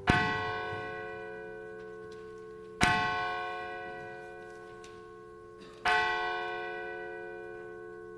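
A church bell struck three times, about three seconds apart, each stroke ringing on and slowly fading.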